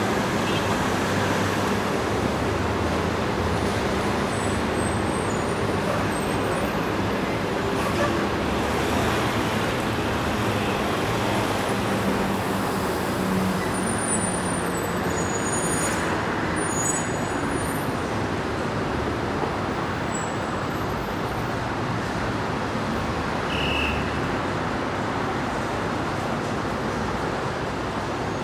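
Dense city street traffic running steadily: engines and tyres of cars, buses and trucks blending into a constant noise. A heavy vehicle's low engine hum stands out through the first half, with a few short high squeaks scattered over it.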